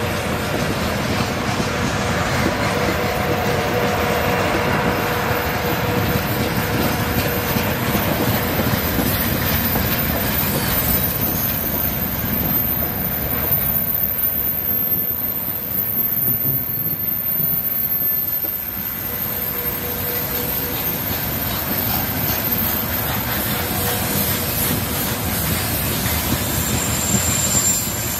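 Open gondola wagons of a freight train rolling past: a steady rumble and clatter of steel wheels on the rails, with a thin wheel squeal coming and going.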